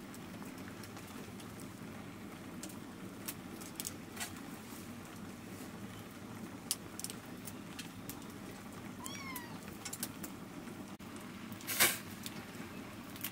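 Hands picking leafy greens and snapping their stems into a metal bowl: scattered small clicks and snaps, with one louder tearing snap near the end. About nine seconds in, a brief high-pitched animal call.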